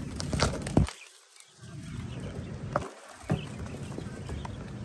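A few sharp clicks and knocks over a low rumble, the sound of a phone being handled and moved around a wire quail cage.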